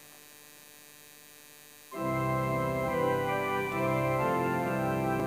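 Two-manual electronic organ playing sustained chords, starting about two seconds in after a faint steady hum.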